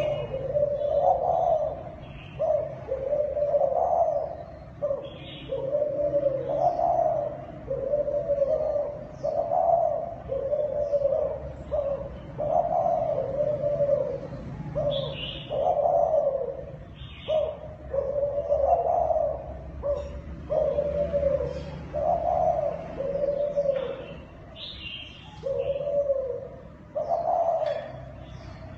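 Zebra dove (Thai dove) cooing, a male's contest coo: the same phrase of arched, bubbling coos repeats about every two seconds. Short faint chirps sound now and then above it.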